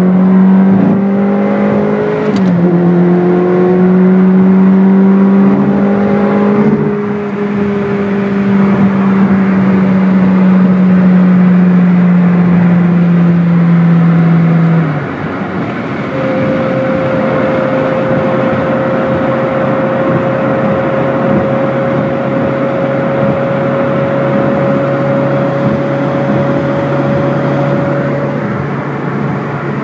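A Ferrari's engine heard from inside the cabin, pulling hard under acceleration with rising pitch. The pitch drops briefly about two seconds in, as at a gear change, then keeps climbing. About halfway through it eases off suddenly to a steady, quieter cruising drone.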